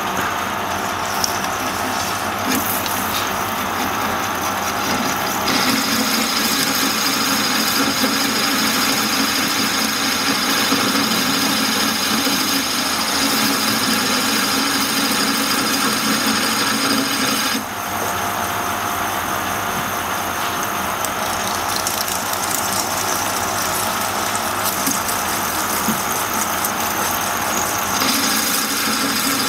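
Metal lathe running with the tool cutting a spinning workpiece: a steady machining noise with a high whine that strengthens about five seconds in and drops back briefly near the end.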